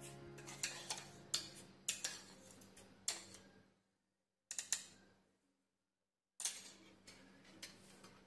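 Light, irregular clicks and taps of a steel spoon against small plastic dishes and a plastic bowl as sugar and salt are spooned into curd, with two short stretches of silence.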